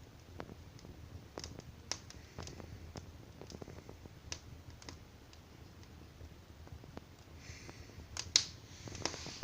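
Wood fire crackling: irregular sharp pops and snaps over a low rumble, with one louder pop near the end.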